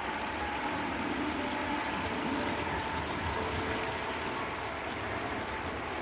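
Steady outdoor rushing like flowing water, with wind rumbling on the microphone.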